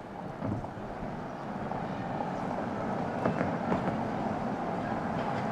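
Audi Q7 e-tron plug-in hybrid SUV driving past on a paved street: a rush of tyre and road noise that swells over the first few seconds and then holds, with scattered light clicks.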